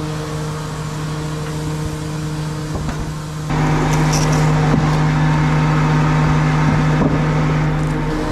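Truck engine running steadily, growing clearly louder about three and a half seconds in and holding there.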